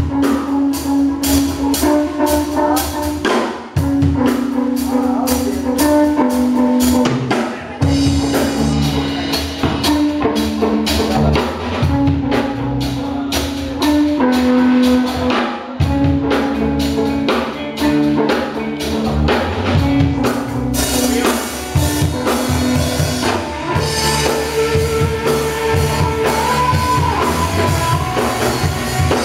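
Live rock band playing: electric guitars over bass and a drum kit, with a guitar line repeating over the beat. The band drops out briefly twice, about four seconds in and again past the middle.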